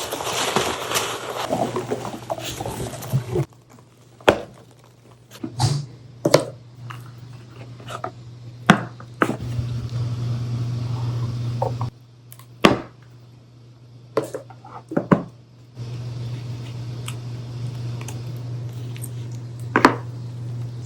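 Hands unboxing a watch: scattered sharp clicks, taps and short scrapes as the box, inner case and packaging are handled and opened. A steady low hum sits under it, cutting out a few times and returning.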